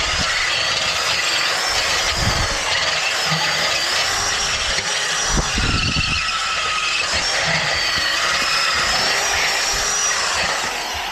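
Power drill running continuously with a wavering high whine, boring through the catalytic converter core inside a motorcycle exhaust pipe to break it up, with a few low knocks.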